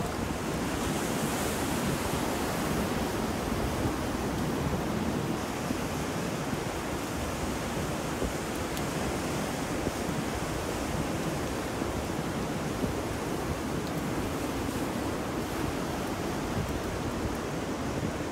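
Ocean surf and wind in a steady, even rush, with a few faint ticks now and then.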